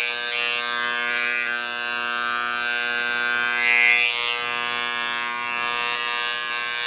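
Electric hair clippers buzzing steadily while clipping a dog's long coat, with a brief louder rasp about four seconds in as the blades work through the fur.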